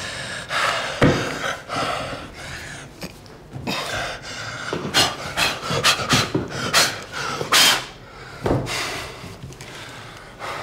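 A man breathing hard in loud, irregular pants and puffs of breath, with two dull knocks, one about a second in and one later on.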